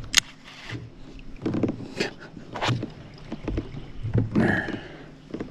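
Irregular knocks and thumps against a plastic sit-on-top kayak's hull as a landed bass and fishing gear are handled on the deck.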